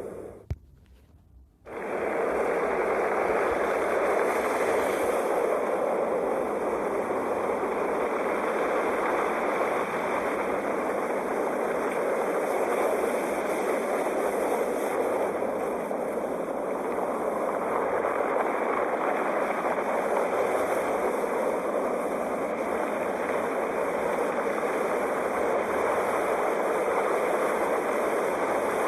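Sea waves rushing in a continuous, steady wash with slow gentle swells. The sound drops out for about a second just after the start, then resumes.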